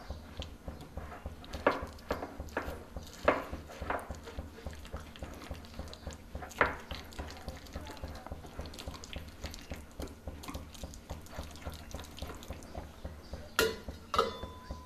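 Wire hand whisk beating thick, wet lentil batter in a glass bowl: soft squelching stirring with the wires clicking against the glass in quick, uneven strokes, and a few louder clinks. A louder clatter near the end.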